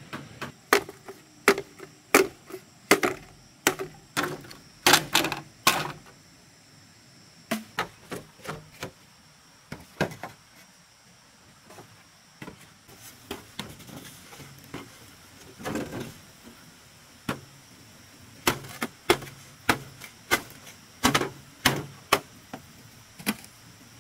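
Machete chopping and knocking green bamboo poles: a run of sharp, irregular wooden knocks in clusters, with a few short pauses between them.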